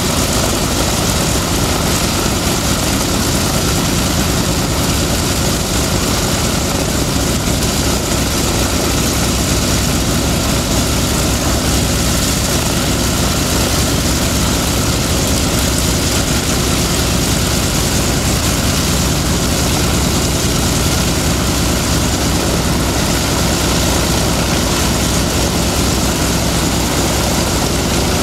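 F4U Corsair's Pratt & Whitney R-2800 radial engine running steadily on the ground, its propeller turning. The sound is loud and even, with no change in speed.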